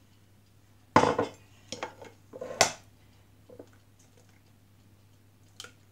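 A few sharp knocks and clinks of eggshell against stainless steel bowls and a small cup as eggs are cracked and separated, the loudest about a second in with a short metallic ring, then several smaller taps.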